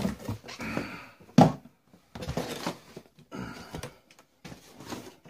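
A steam iron and its base being taken out of a cardboard box and set down on a wooden floor: cardboard rustling and scraping in short bursts, with one sharp knock about a second and a half in.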